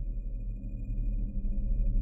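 Sound-effect drone: a low rumble with a thin, steady high tone above it, slowly swelling in loudness.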